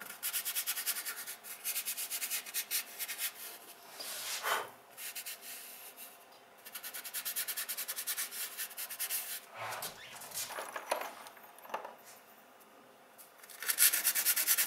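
Fingertips rubbing soft pastel and chalk into sandpaper, a dry scratchy sanding sound in quick back-and-forth strokes. The strokes come in spells with short pauses between them.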